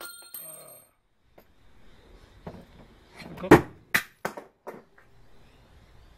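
Steel drill bits and tools knocking and clinking against a small metal lathe as they are handled and set down. The knocks are scattered, with the loudest about halfway through and a quick run of lighter clicks just after it.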